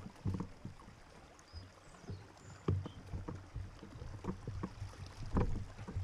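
Bicycles being pushed on foot through a shallow, rocky stream: irregular thuds and knocks of feet and wheels on stones, with water sloshing. The two heaviest knocks come near the middle and near the end.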